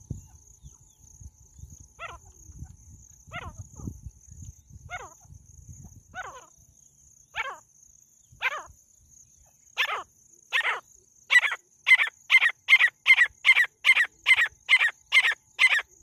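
Francolin hen calling: single sharp notes at first about a second and a half apart, which quicken about ten seconds in into a fast, louder run of about two or three calls a second.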